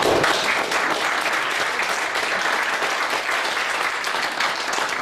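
Audience applauding: many people clapping at once in a steady wash of claps.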